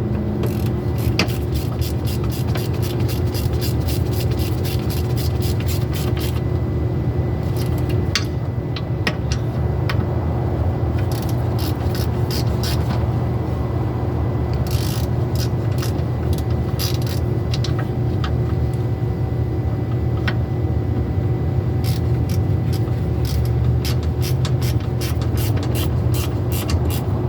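Runs of quick ratchet-wrench clicks, several bursts of a few seconds each, as the retaining bolts of a drum-brake wheel cylinder are tightened, over a steady low mechanical hum.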